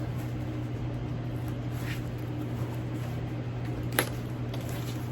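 Steady low room hum, with a faint rustle about two seconds in and one sharp click about four seconds in as the bag is handled.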